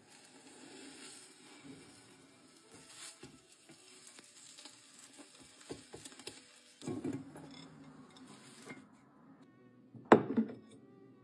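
Egg cooking faintly in a rectangular Japanese omelette pan while a spatula scrapes and taps as the omelette is rolled. About ten seconds in, the loudest sound: a sharp knock with a short ring as a plate is set down.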